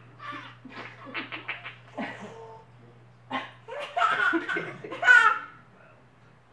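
Hearty laughter in a run of quick, even pulses, with a louder stretch about four to five seconds in.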